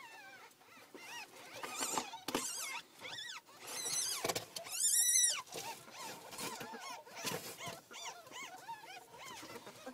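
Ferrets squeaking in a nest box: many short, high, arching squeaks, the loudest and longest a little after halfway, with bedding and cardboard rustling under a handling hand.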